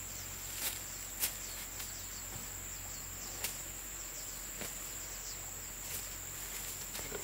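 Steady high-pitched drone of insects, with a few sharp clicks scattered through it.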